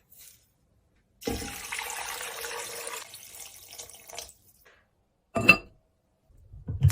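Water running from a tap for about three seconds, then a single sharp knock.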